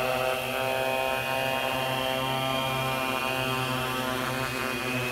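A Y6 coaxial multirotor's six electric motors and propellers run with a steady hum during an automatic return-to-home descent. The pitch eases slightly lower in the last seconds as it settles toward the ground to land.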